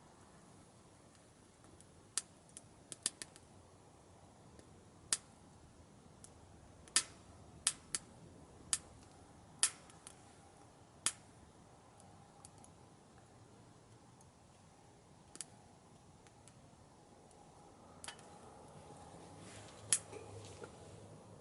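Wood burning in a small camp stove, crackling with sharp, irregular pops, about a dozen of them, over a faint hiss.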